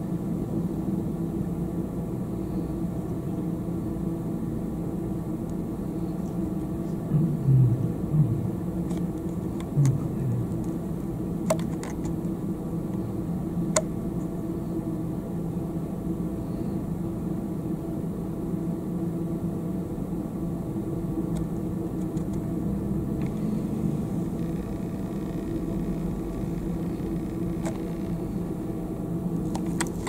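Steady low mechanical hum, like a motor or idling engine, with a few brief low sounds about seven to ten seconds in and two faint clicks near the middle.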